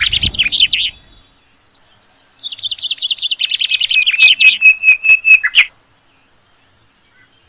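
A songbird singing in two phrases of rapid high chirps. The first stops about a second in. The second, longer phrase starts after a short pause and ends in a string of quick evenly spaced notes, about five a second.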